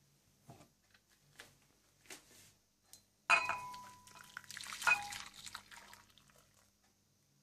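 Hot milky coffee poured from a stainless steel saucepan into a ceramic bowl, starting suddenly about three seconds in and running for about three seconds, with ringing clinks as the pouring starts and again a second and a half later. Before that, a few faint knocks as the pan is handled on the hob.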